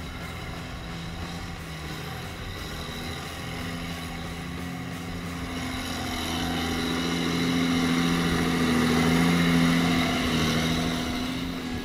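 John Deere 4455 tractor's six-cylinder diesel engine running steadily under load with the tractor stuck in mud, growing louder in the second half and easing off near the end.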